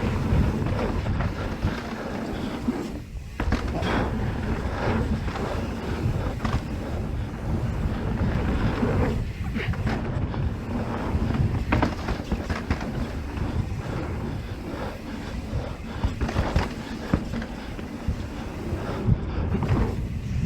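Mountain bike riding fast down a dirt trail: wind buffeting the microphone in a steady low rumble, with tyres on dirt and frequent knocks and rattles from the bike over bumps.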